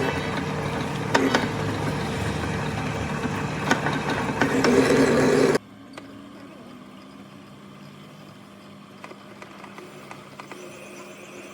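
Lathe machine running with a steady mechanical hum and occasional sharp metallic clicks; it cuts off abruptly about five and a half seconds in, leaving a faint steady hum with light ticks.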